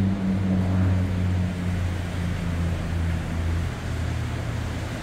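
Beech C-99 Airliner's twin Pratt & Whitney PT6A turboprops at climb power: a low propeller drone that slowly fades as the aircraft climbs away.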